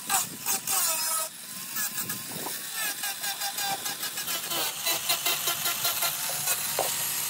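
Angle grinder with a sanding disc running against the edge of a helmet shell, grinding the visor opening smooth. It is choppier and louder for the first second or so, then a steadier grind.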